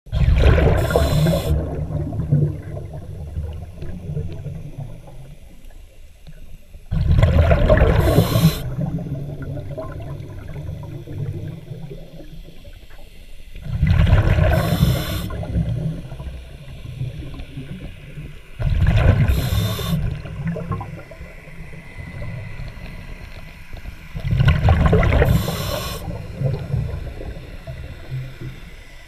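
Underwater breathing of a scuba diver through a regulator. A burst of exhaled bubbles comes about every five to six seconds, each trailing off into a low bubbling rumble.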